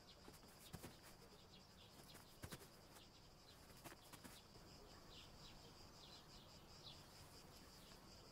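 Near silence: faint garden ambience with birds chirping in short falling chirps, over a faint steady high hiss, and a few soft taps.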